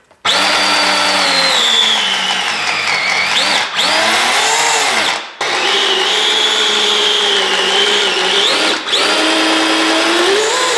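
RC snowmobile's Tekin T8 brushless electric motor spinning its studded drive track in the air, a loud whine that falls and rises in pitch with the throttle. It starts abruptly, dips briefly a few times and nearly stops once about five seconds in.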